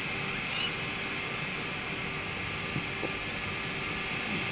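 Steady outdoor background noise, an even hiss and low hum with no clear single source, broken by a couple of faint short clicks.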